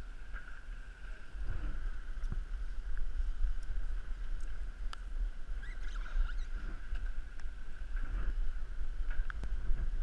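Wind buffeting the microphone of a body-worn camera high on a sailing yacht's mast, a steady rumble, with a few sharp knocks and scrapes as gloved hands and climbing gear work against the mast and rigging.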